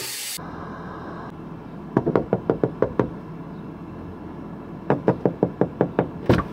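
Two bursts of quick knocking, about seven knocks a second, each lasting about a second: one about two seconds in and another about five seconds in. A low steady background sits between them.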